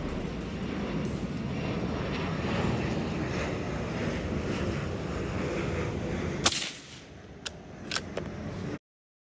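Steady outdoor rumble, then about six and a half seconds in a single sharp crack of a suppressed bolt-action rifle shot, followed by two lighter clicks. The sound then cuts out abruptly.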